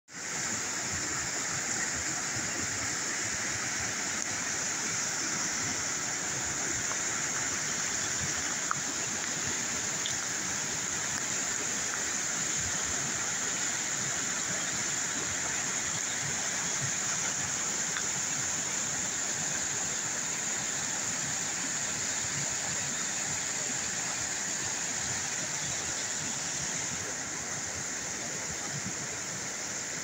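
Small waterfall rushing white through narrow chutes in layered bedrock: a steady, even rush of water that eases a little near the end.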